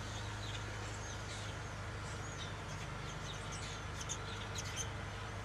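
Felt-tip marker squeaking and scratching on poster board as a line is drawn and letters are written, with a few short strokes about four to five seconds in. Faint high chirps and a steady low hum sit underneath.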